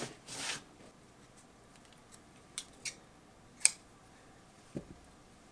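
A short swish of a cloth wiped over a drywall surface, then a few small sharp clicks, the sharpest about three and a half seconds in, and a soft low knock near the end, as hands handle speaker wire and small tools.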